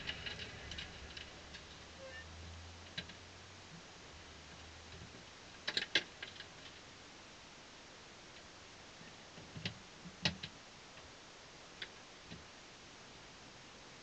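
Quiet cockpit audio of a Radical SR3-RSX race car coming to rest: a faint low engine hum dies away about five seconds in. After that there are only a few scattered sharp clicks and taps, the loudest a quick pair near the middle and two more a few seconds later.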